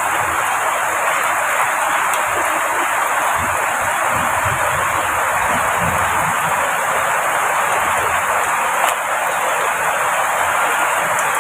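Heavy rain falling, a steady even hiss that does not let up.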